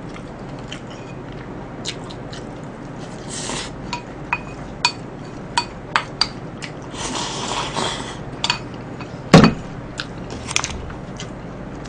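Chopsticks clicking against a ceramic rice bowl while eating, a few sharp clinks at uneven spacing. About nine seconds in comes one louder knock as the bowl is set down on the table.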